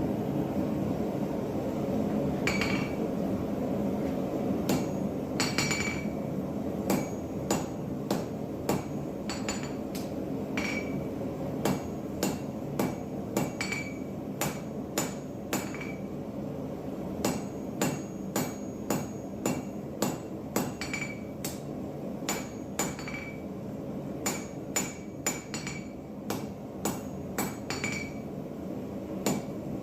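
Hand hammer striking steel on an anvil, forging a drawknife blade: sharp blows with a short metallic ring, coming at a steady rhythm of about one to two a second after a few scattered strikes at first, over a steady low rushing noise.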